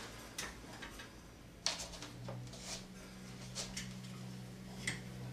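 Clothes and hangers being handled inside a wardrobe: a few scattered light clicks and rustles, over a low steady hum that grows a little louder about two seconds in.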